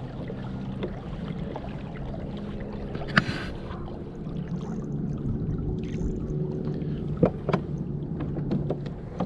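A steady low hum made of several level tones, with a few sharp knocks: one about three seconds in and two close together near the end.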